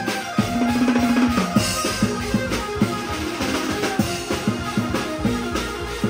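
Vietnamese funeral ritual music: drums beating in a quick, dense rhythm, with a held instrumental note for about a second near the start and shorter melodic notes after it.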